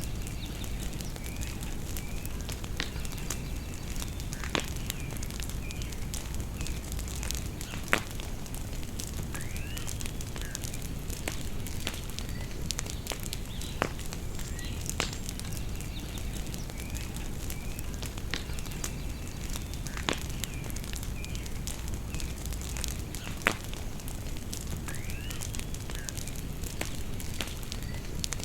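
Outdoor bonfire crackling and popping, with scattered sharp pops, the loudest about eight seconds in and near the end, over a steady low rumble. Birds chirp now and then in the background.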